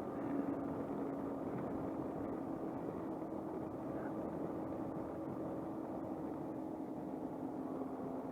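Suzuki Burgman 200 scooter running steadily at cruising speed, its engine giving a steady drone under wind and road noise.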